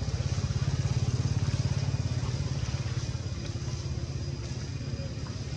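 A low, pulsing engine rumble, loudest about one to two seconds in and then easing off.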